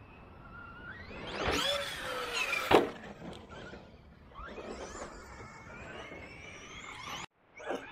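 Electric RC monster truck's brushless motor whining, the pitch rising and falling as it accelerates and lets off, with a sharp knock of an impact near three seconds in.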